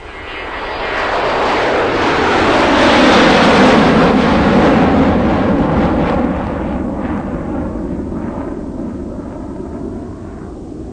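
JCB 3DX backhoe loader's diesel engine revving hard under hydraulic load as the backhoe digs and lifts a bucket of soil. It swells to its loudest a few seconds in, then eases back.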